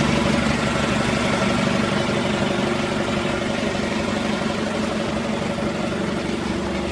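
Off-road vehicle engine idling steadily, its level easing down slightly.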